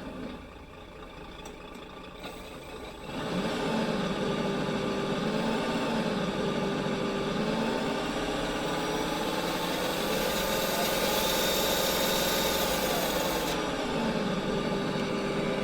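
RC truck sound kit playing a simulated engine sound through its speaker. It runs quietly for about three seconds, then turns much louder, with the engine note rising and falling gently as if lightly revved.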